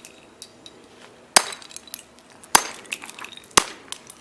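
A hammer striking a plastic Rubik's Cube three times, about a second apart: sharp cracking blows, each followed by a few small clicks.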